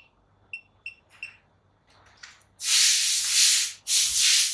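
Short high electronic beeps from the DPS8005 power supply module as its buttons are pressed, four in the first second and a half. Then come two loud stretches of scraping, rubbing noise, each about a second long, which are the loudest sound.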